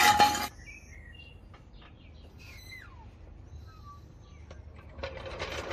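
A broad hiss cuts off abruptly about half a second in. It is followed by a quiet stretch of faint bird chirps, one call gliding downward, with more noise rising near the end.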